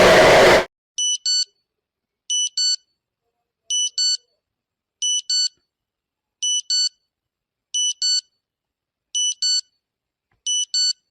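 A loud rushing noise cuts off sharply just under a second in. An electronic alarm then sounds short, high-pitched double beeps: eight pairs, one pair about every 1.4 seconds.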